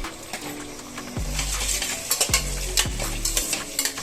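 Onions and green chillies frying in oil in a pressure cooker as chopped tomatoes go in, sizzling louder from about a second in. A spoon stirs and clicks against the pot.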